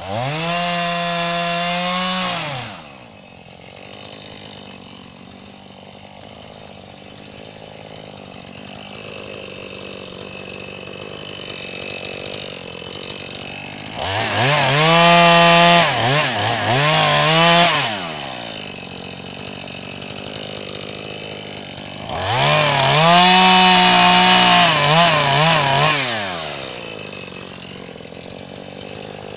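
Gas chainsaw idling between three bursts at full throttle, each two to four seconds long, as it cuts small limbs. In the later two bursts the engine pitch sags and recovers.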